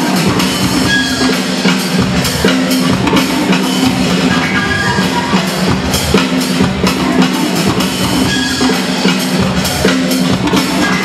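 Break music played loud over a sound system, with a steady drum-kit beat and a repeating bass line.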